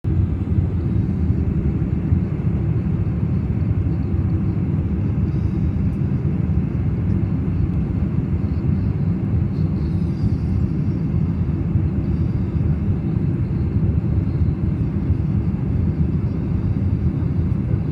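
Steady low rumble inside the cabin of a Boeing 747 in flight: jet engine and airflow noise, even and unbroken.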